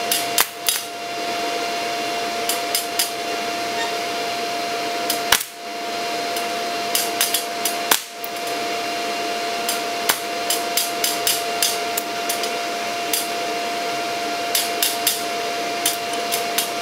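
Stick-welding arc from a Kentaro MMA-160 inverter welder at 35 amps with an E6013 rod: a steady hiss and hum with scattered sharp crackles and pops. The arc drops out briefly twice, about five and eight seconds in, then restrikes.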